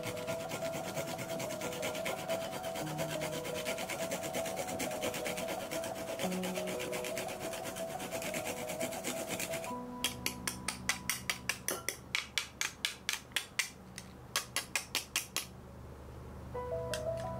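Garlic cloves being grated on a ridged grater dish: fast, continuous rasping for the first ten seconds, then slower separate strokes about five a second until about fifteen seconds in. Soft background music plays under the first part and returns near the end.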